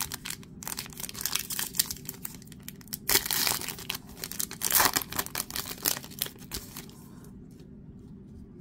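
Foil wrapper of a 2019-20 Panini Chronicles basketball card pack being torn open and crinkled by hand: a rapid crackling of the foil, with the loudest tears about three and five seconds in, dying down near the end.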